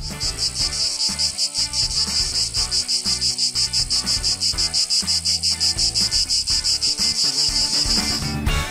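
Male periodical cicada's mating song: a loud, high buzz pulsing rapidly and evenly, which cuts off suddenly shortly before the end.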